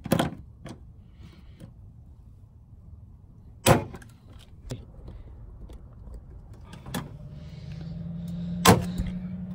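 Hand rivet gun setting pop rivets into a car's rear fender: light clicks as the handles are pumped, and two sharp cracks, about four seconds in and near the end, as the rivet mandrels snap off. A low steady hum comes in about seven seconds in.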